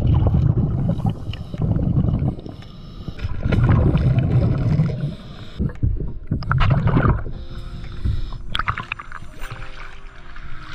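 Scuba regulator exhaust bubbles rumbling in repeated low bursts as a diver breathes out underwater, each burst lasting a second or two. Soft background music comes in during the second half.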